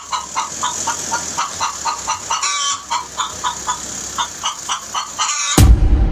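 A chicken clucking in quick, repeated short calls, several a second, then a sudden loud boom near the end.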